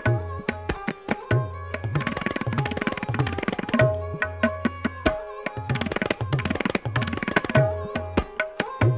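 Tabla-led music: fast, dense drum strokes with recurring deep bass-drum notes under held melodic tones.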